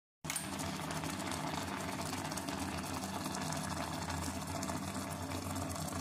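Noodles boiling in a small electric cooker pot: a steady bubbling hiss with a low hum underneath.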